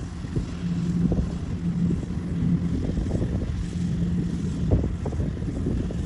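Kubota rice combine harvesters' diesel engines running with a steady drone and a held hum, under an uneven low rumble of wind buffeting the microphone.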